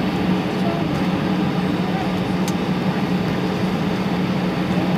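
Steady cabin noise of an Airbus A319 taxiing, its jet engines running at low taxi power, with an even low hum under the rush of air and engine noise.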